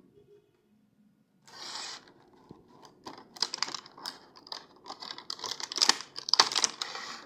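Packaging being handled and torn open: a short rustle, then a run of scratchy crinkling and clicking that grows busier and louder toward the end.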